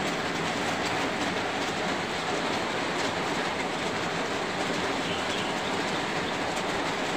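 Steady, even rush of water noise from floodwater flowing through a flooded street.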